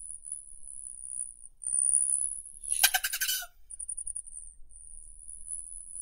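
Rufous hummingbird giving a brief, rapid buzzy chatter about halfway through. Under it runs a continuous, very high, thin whine, which breaks into fast pulses just after the chatter.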